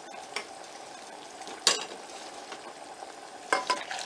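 A spoon stirring pepper gravy mix in a measuring cup, knocking sharply against the cup a few times, over the steady hiss of water boiling in a saucepan.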